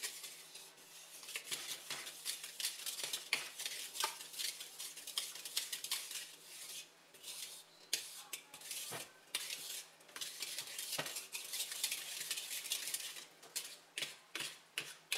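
Dough whisk stirring thick quick-bread batter in a mixing bowl: irregular scraping and clicking of the whisk against the bowl as the flour is worked into the wet ingredients.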